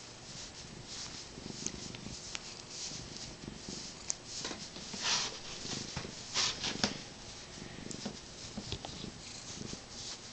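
Domestic cat purring steadily while its head is rubbed, with rustling from the hand on its fur close to the microphone; the rustles are loudest about five and seven seconds in.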